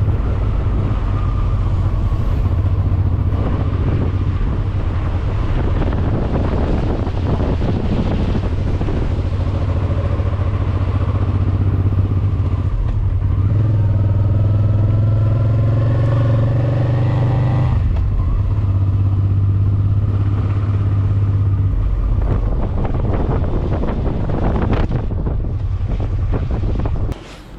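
Motorcycle engine running under way with wind rush. Partway through the engine note rises steadily, then drops back. The sound falls away abruptly near the end.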